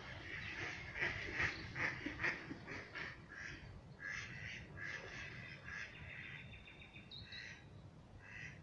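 Birds calling in a quick run of short calls, densest in the first three seconds and thinning out toward the end, over a steady low background rumble.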